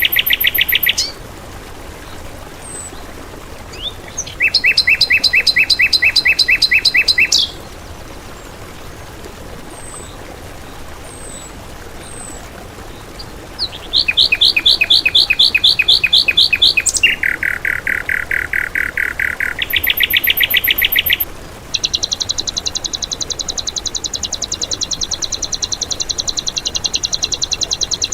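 Songbird song recorded as training material: several bursts, each a few seconds long, of fast, evenly repeated high notes, with short pauses between them holding only a few faint chirps. In the last quarter comes one long, unbroken rapid trill.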